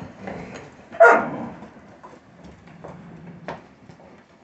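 A puppy gives one short, sharp bark about a second in, followed by faint scattered clicks.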